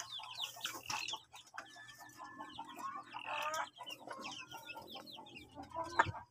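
Chickens clucking and chirping, over a run of sharp clicks from a Boston Roundhead rooster's beak pecking pellet feed in a bowl, with one louder knock near the end.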